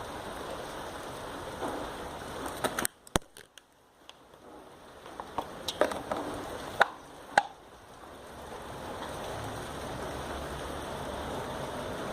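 Steady hiss of rain falling, broken by a few sharp clicks and knocks and a brief drop to near silence about three seconds in.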